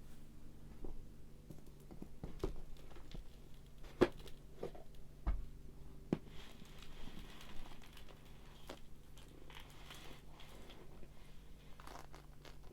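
Quiet handling sounds: scattered light knocks and clicks, with some crinkling about halfway through, over a faint steady hum.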